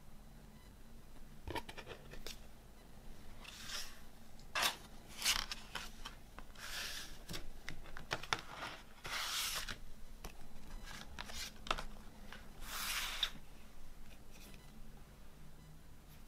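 Hands handling a cardboard CD digipak and its paper booklet: short clicks and taps, and several papery scraping slides of up to about a second.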